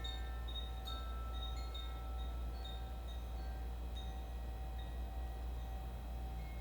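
Koshi chimes tinkling: a couple of clear strikes in the first second, then a few lighter, sparser notes as the bright overtones ring on and slowly fade. A steady low hum runs underneath.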